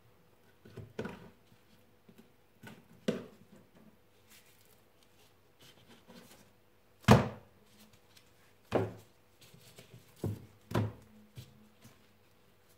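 A boning knife and pieces of roe deer meat knocking and being set down on a wooden cutting board while a saddle is boned out: about half a dozen scattered dull thuds, the loudest about seven seconds in.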